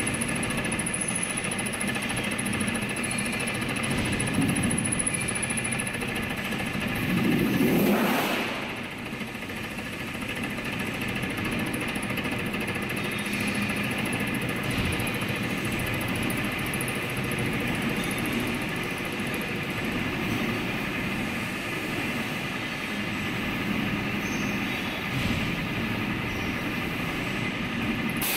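Milling machine running with a fly cutter cutting wrench flats into a steel hydraulic shaft: a steady machine hum with constant whining tones, swelling louder for about a second roughly eight seconds in.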